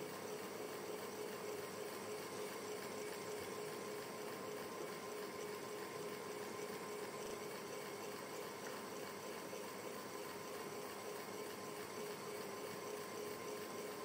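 Ceiling fan running steadily: an even rush of moving air with a constant low hum under it.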